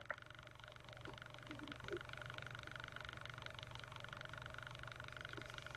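Faint room tone: a low, steady electrical or fan-like hum with a thin higher whine, and a couple of soft small sounds about two seconds in.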